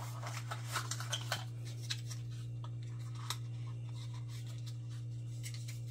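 Small parts of a Quad Lock phone mount being handled while its vibration damper is fitted, giving light clicks and scrapes, mostly in the first two seconds. A steady low hum runs underneath.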